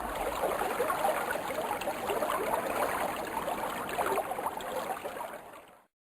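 Running water babbling like a stream, a dense steady trickle that fades out near the end and stops.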